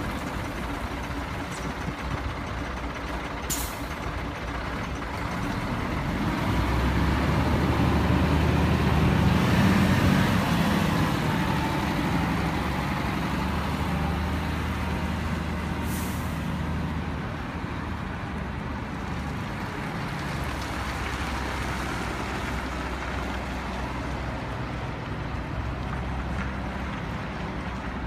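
Scania P124GB tipper truck's 12-litre straight-six diesel running as the truck drives past, loudest about ten seconds in and then fading as it pulls away. Two short hisses of air from the brakes, a few seconds in and again about halfway.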